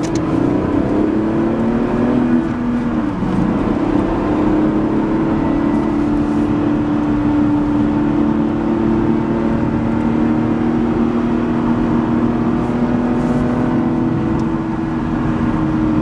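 The 2012 Lotus Evora S's supercharged 3.5-litre V6 heard from inside the cabin on the move, running at a steady pull with tyre and road rumble underneath. Its pitch dips briefly about two to three seconds in, then holds steady.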